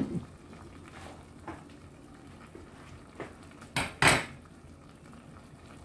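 Metal clinks and clanks against a stainless steel cooking pot: a sharp knock at the start, a couple of faint taps, then two louder clanks close together about four seconds in.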